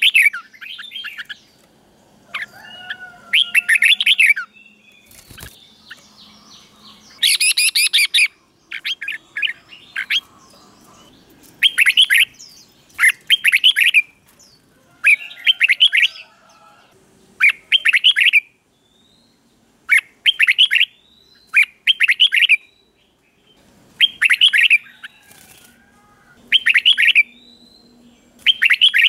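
Red-whiskered bulbul singing: short, quick chirping phrases repeated every second or two, with brief pauses between them.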